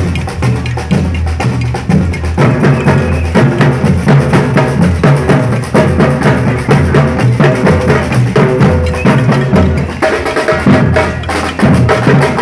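A street percussion group of surdo bass drums played with sticks, beating a fast, loud, driving rhythm together, deep drum strokes under sharper stick hits.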